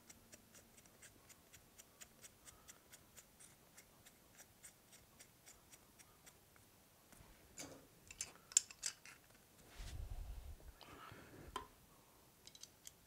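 Faint metal-on-metal handling noise from the forcing rod, extractor socket and slip-joint pliers: small, even ticks about three a second at first, then a few sharper metallic clinks and a low bump in the second half.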